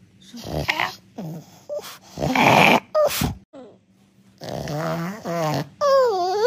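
French Bulldog grumbling and groaning in reply to its owner: a few short snorty huffs, then a low grumble, and near the end a drawn-out whining moan that falls in pitch.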